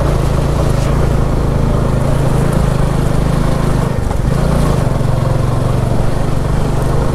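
Motorcycle engine running steadily under way, with a rush of noise over it; the engine note dips briefly about four seconds in.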